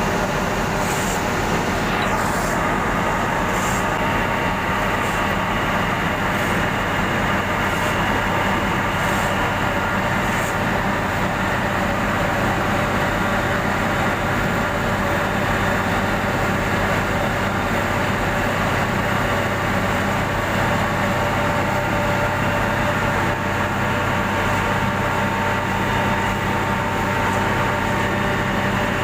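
Heavy diesel road-milling machinery running steadily at a steady engine pitch, with a faint high hiss pulsing about once a second during the first ten seconds.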